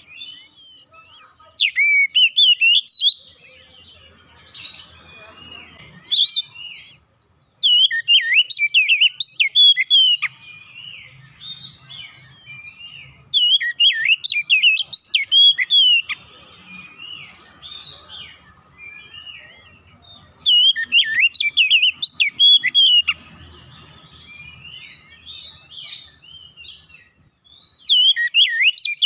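Oriental magpie-robin (kacer) in full song: loud bursts of rapid, varied whistles and chirps, five phrases of two to three seconds each, with softer chirps between them.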